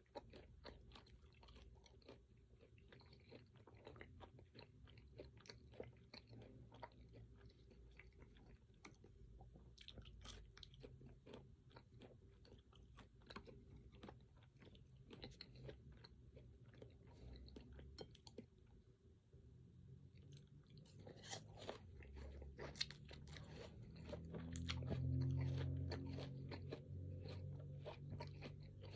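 A person chewing and crunching fruit and pecans, a steady run of small crisp cracks over low mouth noise. The low mouth noise grows louder about three-quarters of the way through.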